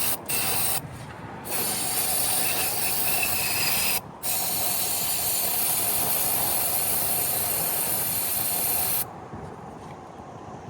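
Aerosol can of starting fluid spraying: a short burst, then two long hissing blasts of about two and a half and five seconds, stopping about nine seconds in. It is flooding a non-running engine with fluid before cranking it.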